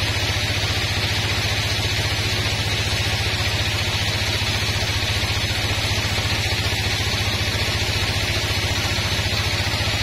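Band sawmill running steadily while its blade rips lengthwise through a log: a low machine hum with a fast, even pulse under a steady hiss of sawing.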